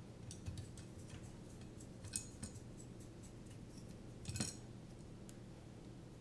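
Light clicks and clatters of carbon-fibre drone frame plates and small screws being handled and shifted on a silicone work mat. The loudest is a single knock about two seconds in, and there is a short clatter a little after four seconds.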